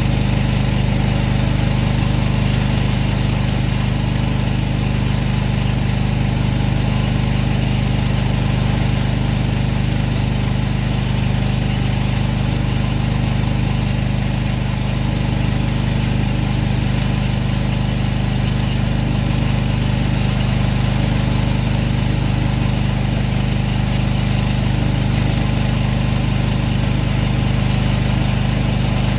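Pressure washer's small petrol engine running steadily at constant speed.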